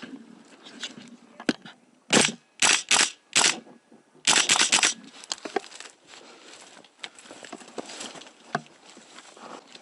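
Airsoft electric rifle firing four short bursts, then a longer burst of rapid fire about four seconds in, with faint rustling and ticking around it.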